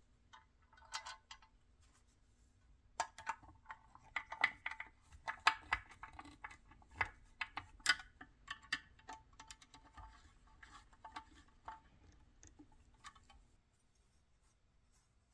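Small screws being threaded by hand and then tightened with a Phillips screwdriver into the painted metal housing of a 1960s Duncan parking meter: a run of light metallic clicks and scrapes, thickest in the middle.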